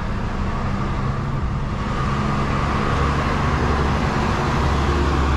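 Street traffic: the steady rumble and tyre noise of cars on the road, growing a little louder in the second half as a vehicle comes by.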